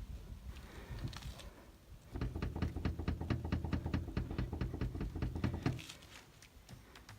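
Renault Kangoo tailgate creaking and knocking in a rapid run of clicks over a low rumble, mainly from about two to six seconds in. It is the tailgate squeak that comes from the plastic and rubber of the door and latch working against each other while driving.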